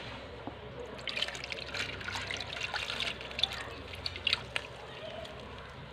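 Water splashing and trickling as a small aquarium net is swept through a plastic tub and lifted out, draining, with scattered irregular splashes and drips from about a second in.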